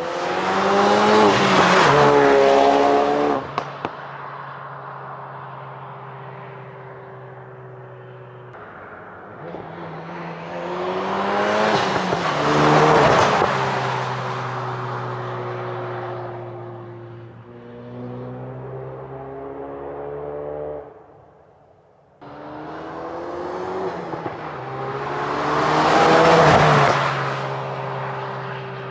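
2017 Ford Focus RS with its turbocharged 2.3-litre EcoBoost four-cylinder, driving past three times: each time the engine note climbs under acceleration, peaks loudly as the car goes by and drops in pitch, with steadier stretches of the engine running at an even pitch in between.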